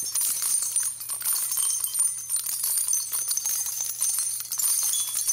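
Small bells jingling and tinkling steadily in a dense, high shimmer, fading out just after the end, as a transition sound effect.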